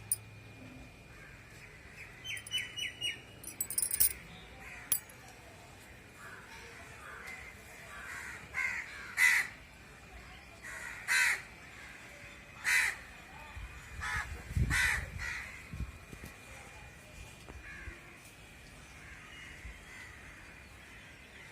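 A crow cawing outdoors: four loud, harsh caws about two seconds apart. Before them, a smaller bird gives a few quick high chirps.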